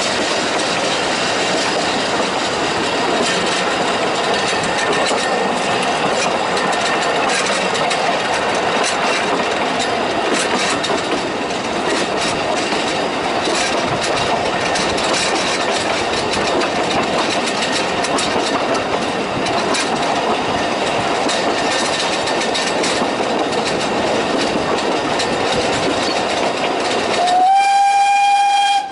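Talyllyn Railway narrow-gauge steam train running, its wheels clicking over the rail joints under a steady rumble. Near the end the steam locomotive's whistle gives one loud blast.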